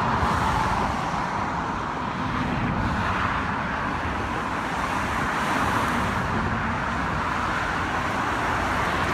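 Steady traffic noise from a busy multi-lane freeway: the even hum of many cars' tyres and engines passing below.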